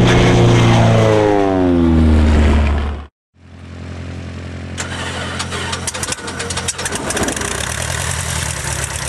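A loud tone slides down in pitch over about three seconds and cuts off abruptly. Then a light aircraft's propeller engine starts up: a low steady hum builds, with rapid irregular clicks from about five seconds in as the propeller gets turning.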